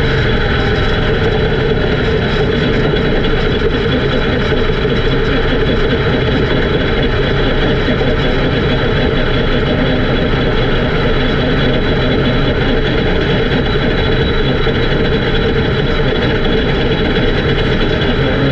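Race car engine running loud and steady, with no let-up or change in pitch.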